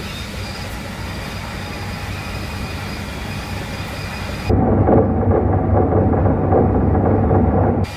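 Running noise of a JR Hokkaido 711 series electric train, heard from inside the cab as it travels along the track: a steady hiss with faint high whining tones, switching abruptly about four and a half seconds in to a louder low rumble that drops back just before the end.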